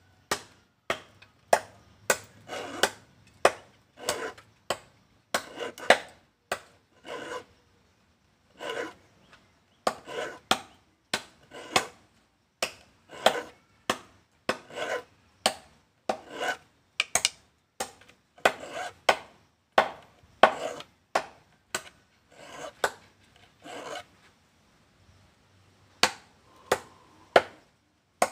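Small hand file rasping across the teeth of a wooden handsaw in repeated strokes, about two a second, each stroke a sharp scrape, with a short pause near the end. The saw is being sharpened because the blade is dull.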